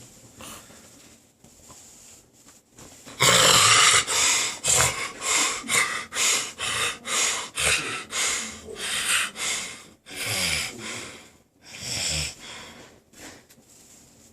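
A sleeping man snoring hard: after a few quiet seconds, a loud run of rough snores about two a second, then two slower snores near the end.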